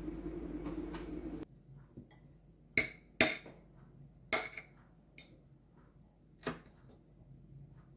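A metal fork clinking and scraping against a ceramic plate while twirling noodles: four sharp clinks and a lighter one, spread unevenly. Before that, a steady low hum that cuts off about a second and a half in.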